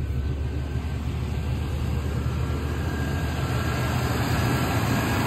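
1991 Cadillac Brougham's 305 cubic inch (5.0-litre) throttle-body-injected V8 idling steadily and running smoothly, "like a sewing machine".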